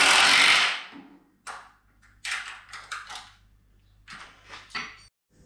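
A cordless DeWalt power tool runs loudly and cuts off about half a second in. Several short clatters and knocks of tools and metal parts being handled follow.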